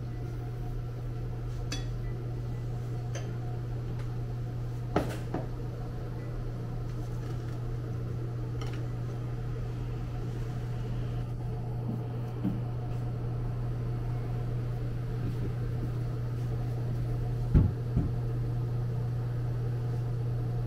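Steady low hum in a small café room, with scattered clinks and knocks of a metal pour-over kettle and glassware being handled on the counter; the loudest are two knocks close together near the end.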